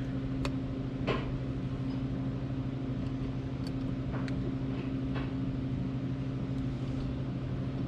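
A steady low machine hum from a running motor, with a few faint light clicks.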